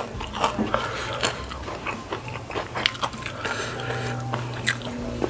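Close-miked mouth sounds of a person eating spicy fried noodles: chewing with irregular wet smacks and clicks.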